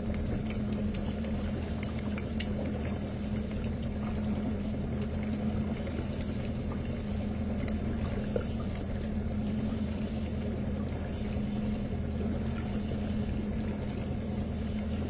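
Outboard motor running steadily at low speed, a constant even hum with no change in pitch.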